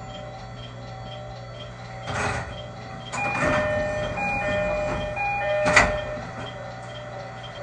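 JR Kyushu YC1 hybrid diesel railcar's doors opening at a station stop, over the railcar's steady hum. A short rush of air comes about two seconds in, then a two-tone door chime repeats for about three seconds while the doors slide, ending in a sharp knock.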